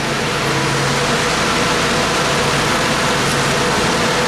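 Fire engines running at the scene: a loud, steady engine and pump noise with a few faint steady tones in it.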